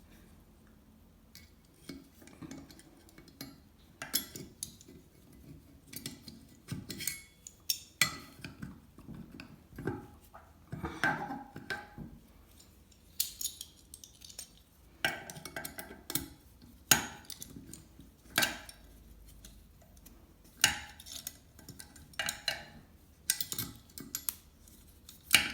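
Mixer tap handle being worked off its body after its grub screw is loosened: irregular metallic clinks and knocks.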